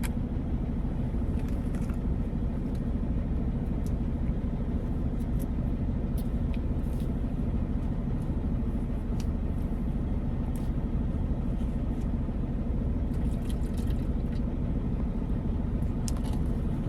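Semi truck's diesel engine idling steadily, a low rumble heard inside the cab, with a few light clicks and taps scattered over it.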